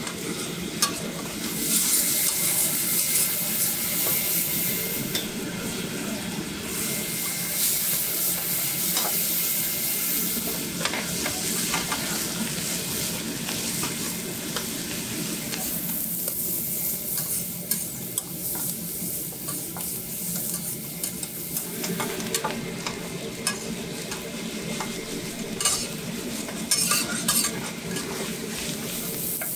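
Egg, pork and scallions sizzling on a flat-top iron griddle while metal spatulas scrape and clack against the plate, then rice being chopped and stir-fried on it for egg fried rice. The sizzle eases a little past the middle.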